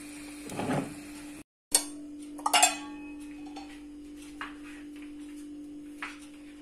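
Kitchen clatter over a steady low hum: a short scrape in the frying pan, then after a brief cut a sharp click and a ringing clink of a plate or utensil, followed by two lighter taps.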